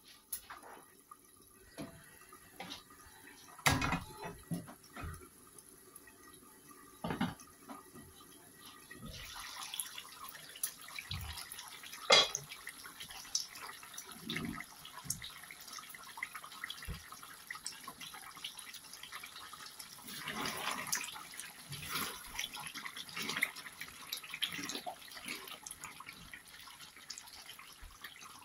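Chicken bhuna bubbling and sizzling in an uncovered pan, a steady crackling hiss from about nine seconds in. Before that there are a few knocks of cookware, and there is a sharp clack about twelve seconds in.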